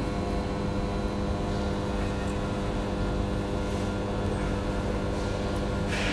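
Steady mechanical hum of a machine running, several constant tones over a low rumble.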